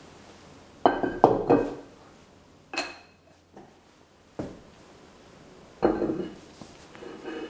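Metal lathe chuck backplate being handled and set down on a shaper's slotted metal table: a series of clanks and knocks, three close together about a second in, a ringing clink near three seconds, and a louder clank about six seconds in as the plate lands on the table.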